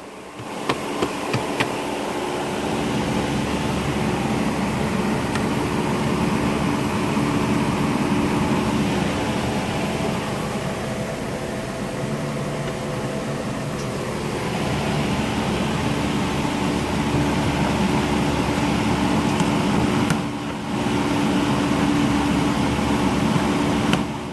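Steady hum of a Hyundai Sonata running, heard inside the cabin: the idling engine with the ventilation fan blowing. A few sharp clicks come about a second in.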